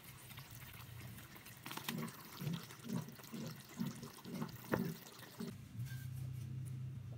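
Thick coconut-milk chicken curry simmering in a frying pan, low bubbling plops about twice a second with a few light clicks; a steady low hum comes in near the end.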